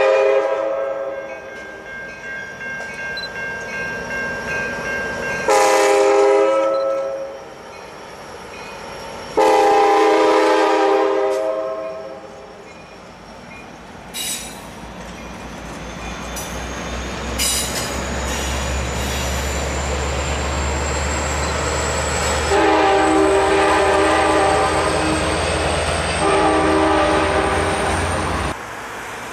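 Passenger train's EMD F59-series diesel locomotive horn sounding five long chords, with pauses between them, as the train crosses a steel bridge. Between blasts the wheels click over rail joints, a thin high whine rises slowly, and a low diesel rumble builds in the second half before the sound cuts off near the end.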